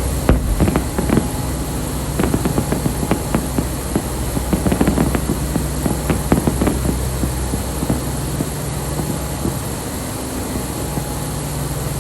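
Fireworks going off in an irregular string of bangs and crackling pops, thinning out after about seven seconds, over a steady low hum.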